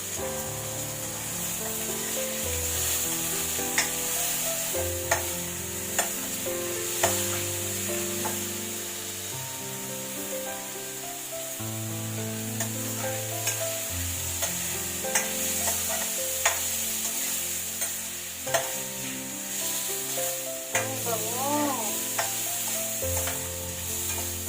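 Food sizzling in a hot pan as it is stirred, with sharp clicks of the spatula striking the pan now and then. Soft background music underneath.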